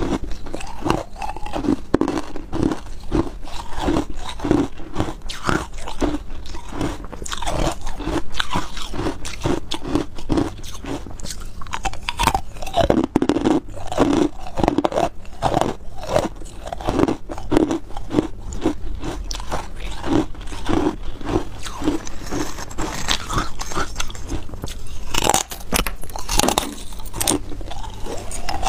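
Close-up crunching and chewing of a mouthful of frosty white ice, at about two chews a second, with louder, sharper crunches near the end.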